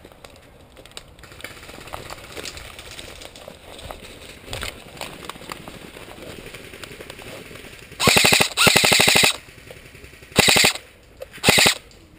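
Electric airsoft rifle firing close by in four short full-auto bursts, a rapid even rattle of shots, the first two bursts almost back to back, starting about eight seconds in after a stretch of quiet rustling.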